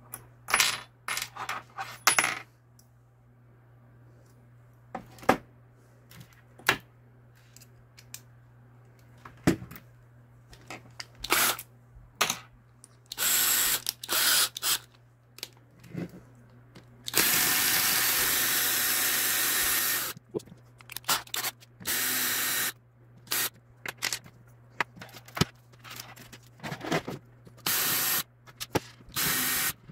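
A cordless drill runs in several short bursts against a 3D-printed plastic servo mount, the longest lasting about three seconds midway. Between the bursts come many sharp clicks and clinks of small hard parts being handled.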